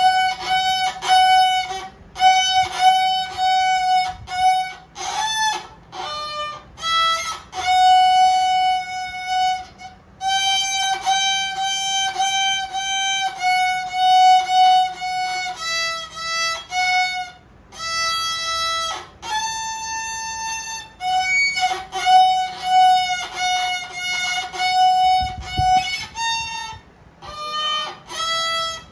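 Solo violin played by a child: a simple tune of separate bowed notes, many of them repeating the same pitch, in short phrases with brief breaks.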